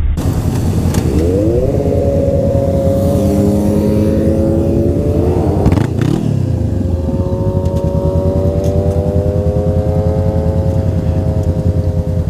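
Sport motorcycle engine running at highway speed, rising in pitch as it accelerates, with a break about six seconds in, then holding a steady, slowly climbing note.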